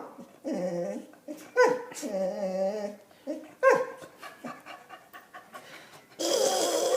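An English Springer Spaniel whimpering and panting, mixed with a person's odd, drawn-out wavering vocal noises. Several separate pitched calls come in the first four seconds, some sliding sharply down. A louder, breathy sound starts about six seconds in.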